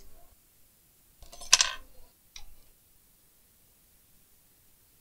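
Small clicks and a short scraping rustle from soldering tools being handled on a workbench: a brief rustle about a second and a half in, then a single click.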